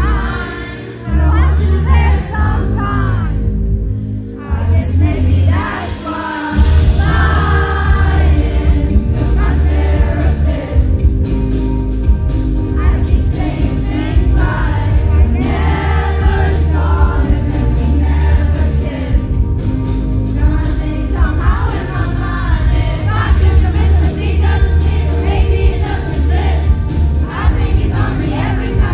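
A pop song performed live: a female lead vocal over a band with a heavy, pulsing bass, the bass dropping out briefly in the first few seconds.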